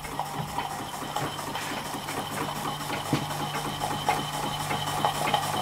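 Scratch-built model overtype steam engine running steadily under steam from its gas-fired boiler, with a steady low hum underneath.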